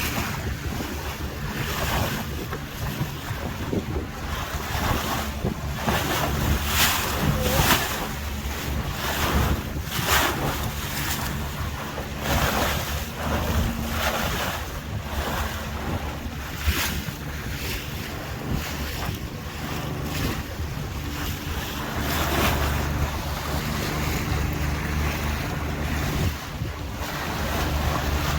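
Tour boat under way: its motor gives a steady low hum while water splashes and rushes against the hull in repeated surges, and wind buffets the microphone.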